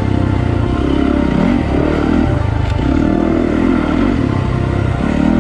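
Dirt bike engine on a trail ride, its revs rising and falling about once a second as the throttle is worked.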